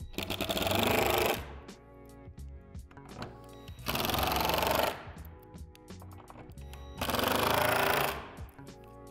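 Cordless impact driver driving screws through a metal square tube into a plastic shed gable: three bursts of rapid hammering, each about a second long.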